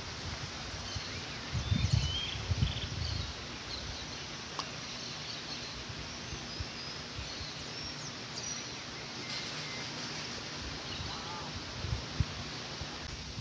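Outdoor background hiss with scattered faint chirps of small birds, and a few low rumbles in the first few seconds.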